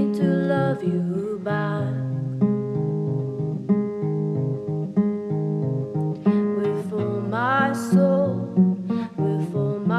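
Acoustic guitar playing a picked and strummed passage of a song, with a short wordless sung phrase about seven seconds in.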